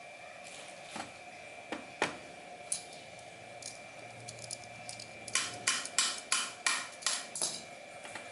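Tree saw being handled: a few scattered clicks and knocks, then a quick run of about seven short rasping strokes, some three a second, in the second half.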